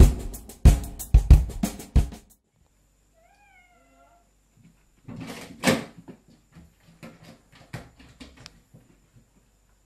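Drum-heavy music cuts off about two seconds in. A cat then gives one short, faint meow, followed by a loud thump against a wooden door and a string of light scratching and clicking as it paws at the door.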